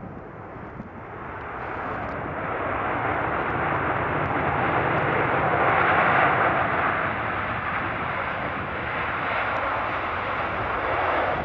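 Boeing 747-8F jet engines on a landing pass, a noisy rumble that grows louder, peaks about six seconds in, then eases off a little.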